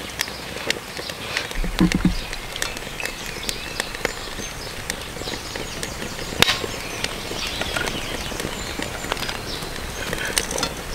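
Cooking oil poured from a plastic bottle into a non-stick pan on a small wood-burning stove, over steady crackling and popping. There is a dull knock about two seconds in, and a single sharp click past the middle.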